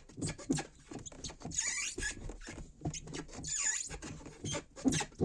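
Gear-shift lever and linkage of a 1990 Opel Kadett 1.3 squeaking twice as the lever is worked, each a high squeak that dips and rises in pitch, among light knocks. Heavy greasing at the lever has not stopped it. The owner traces it to the shift rod underneath, where a torn dust boot most likely let in moisture.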